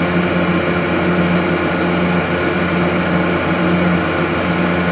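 Gardner Denver Electra Screw rotary screw air compressor, driven by a three-phase electric motor, running loaded with a steady hum as it builds pressure to its 115 psi cut-out. The deep hum drops away right at the end as the unit kicks out.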